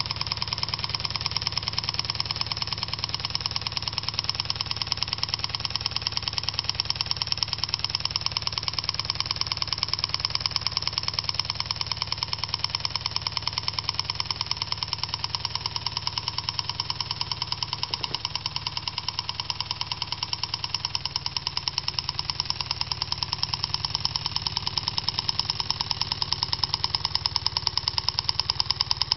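Homemade gamma-type Stirling hot air engine running at speed, its crank and rods making a rapid, even mechanical clatter that holds steady throughout.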